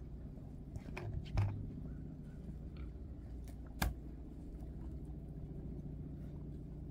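A few sharp knocks and clicks as a pig's water bowl and bucket are handled for ice-busting, with a sharp crack about four seconds in, over a steady low rumble.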